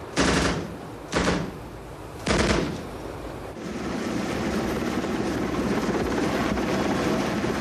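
Three short bursts of machine-gun fire, about a second apart, then a steady rumbling noise that slowly grows louder.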